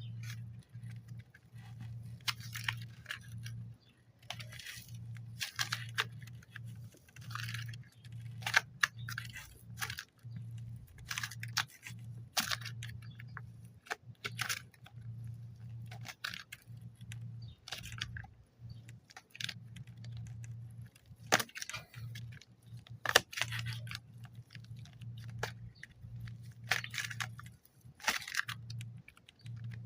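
Clay packaging being unwrapped by hand: irregular crinkles, rustles and small tears of the wrapping, over a steady low hum.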